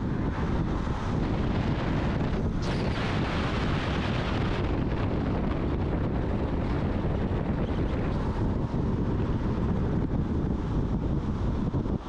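Wind rushing across the microphone of a moving motorcycle, over a steady low rumble of engine and road noise, with a brief stronger gust about two and a half seconds in.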